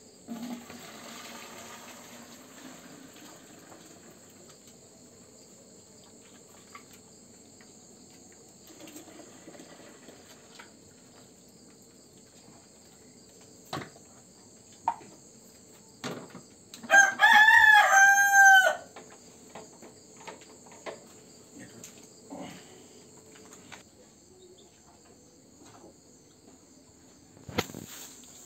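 A rooster crows once, a call of about two seconds, about seventeen seconds in, over a steady high chirring of crickets. In the first few seconds there is a soft pouring sound as milk is poured from a bucket into a plastic milk can, and a few sharp knocks come later.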